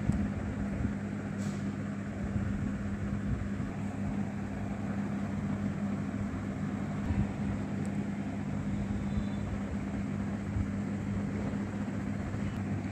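A steady low mechanical hum over an even rumbling noise, unchanging throughout.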